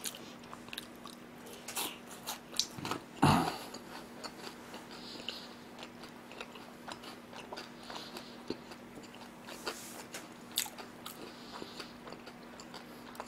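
Close-miked chewing of a mouthful of crisp fried pork cutlet (tonkatsu): a run of small crunches and wet mouth clicks, with a louder crunch about three seconds in.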